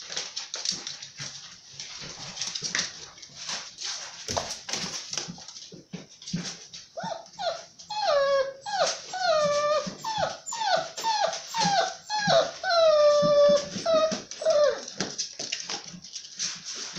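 German shorthaired pointer puppies playing: scuffling with short yips, then from about seven seconds in a run of about a dozen high whining yelps, each falling in pitch, before the scuffling and yips return.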